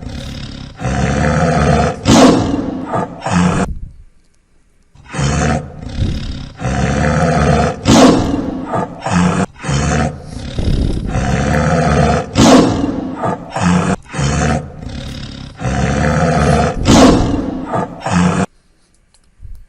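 Recorded tiger roars played as a sound effect. A run of roars lasts about four seconds, then after a short pause a long series of repeated roars goes on until just before the end.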